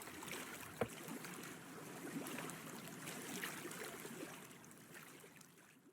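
Water lapping and trickling against a boat's hull, with one sharp knock about a second in, fading out near the end.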